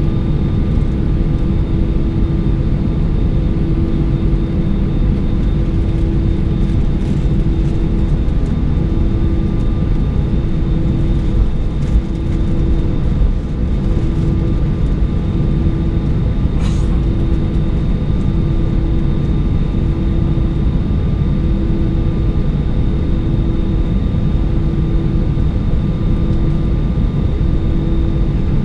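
Airbus A320 cabin noise on the ground: the engines at idle give a steady low rumble with a constant hum and a faint high whine over it, with no change in power.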